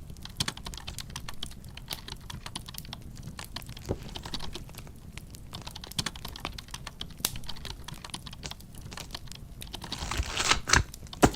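Typing on a computer keyboard: a continuous, irregular patter of key clicks, with a louder run of clatter near the end.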